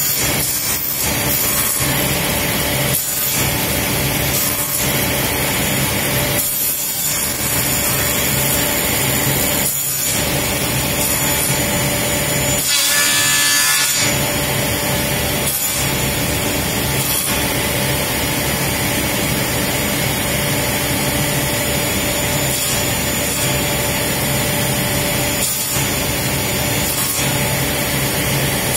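Sliding table saw running steadily, its blade cutting through plywood in repeated passes as the corners of a blank are trimmed off. There is a louder, hissier stretch about 13 seconds in.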